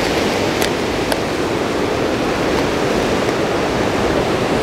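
Ocean surf washing onto rocks, a steady rushing wash, with two faint clicks about half a second apart near the start.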